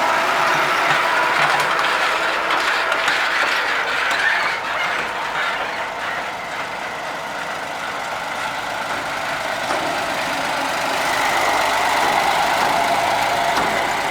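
Heavy farm machinery running steadily, an engine with a faint high whine over it. It eases off a little in the middle and picks up again near the end.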